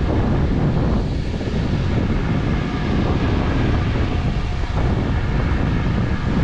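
Wind buffeting the microphone over the steady running of farm harvest machinery.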